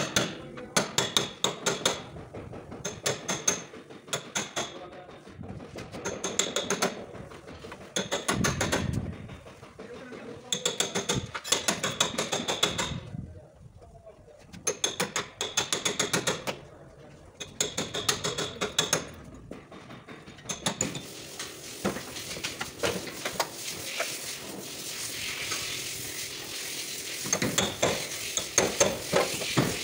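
Hammer driving a chisel into the sheet steel of a car's damaged rear body panel, cutting it free: runs of quick, ringing metal-on-metal strikes with short pauses. About two-thirds of the way in, a steady hiss comes in underneath and the strikes thin out.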